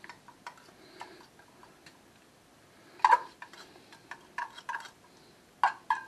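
Metal fork clinking and scraping against a small tin can while mushrooms are picked out of it: scattered sharp clicks, the loudest about three seconds in and another cluster near the end.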